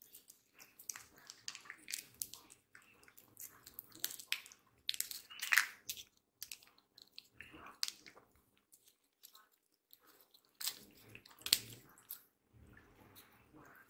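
Two cats licking a moist squeeze-up puree treat from its tube: quick wet licks, smacks and mouth clicks in irregular bursts, loudest about five and a half seconds in and again around eleven and a half seconds, with a short lull around nine seconds.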